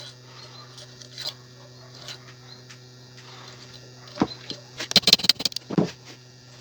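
Hammer blows on a bolt used as a drift, knocking the lock pin out of a differential's planet-gear shaft. A few light metal taps are followed by a quick cluster of sharper knocks about five seconds in.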